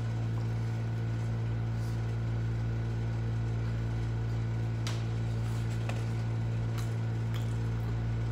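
Steady low hum of a running room appliance, with a few faint clicks as a person chews sticky rice cake.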